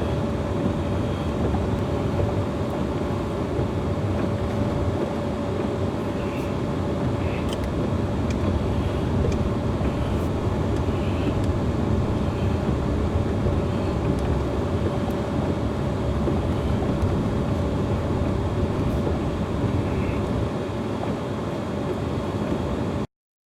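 A vehicle's engine running steadily, with a thin steady whine over a constant low noise. The sound cuts off suddenly near the end.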